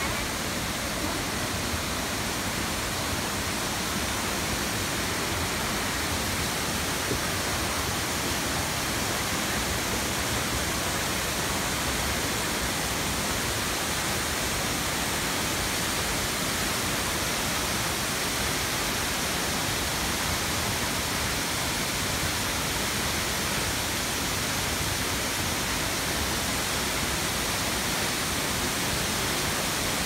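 Khlong Lan Waterfall's water crashing down onto the rock below: a loud, steady rush of falling water.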